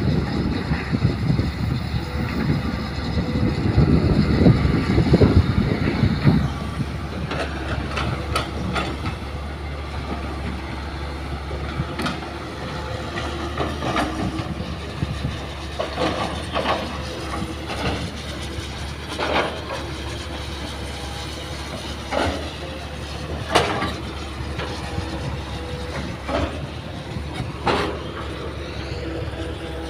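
Hitachi hydraulic excavator working as it loads soil into a dump truck, with a diesel engine running throughout. A heavy low rumble fills roughly the first six seconds. After that, sharp clanks and knocks come every second or two, as soil and rocks hit the truck's steel bed.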